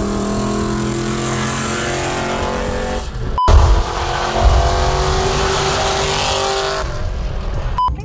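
Chevrolet Caprice PPV's LS V8 running at a steady highway cruise, heard from a car driving alongside with wind rush. After a cut a few seconds in, a short burst of low rumble comes, then the engine note climbs a little as it pulls. The engine runs on all eight cylinders on new fuel injectors, its dead cylinder fixed.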